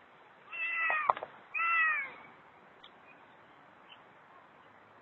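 Ginger kitten meowing twice, each meow falling in pitch, with a short sharp click at the end of the first.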